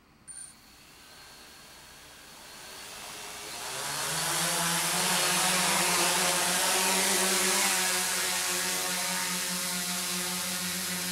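Multirotor drone's electric motors and propellers spinning up for takeoff: a short high blip, then a whir that swells over a few seconds into a loud, steady buzzing hum as it lifts off and hovers.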